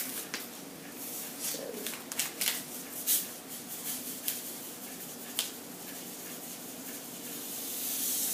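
Paper packet of vanilla sugar crinkling and clicking as it is handled and shaken over a bowl, then sugar pouring out with a soft hiss that swells near the end, over a steady low hum.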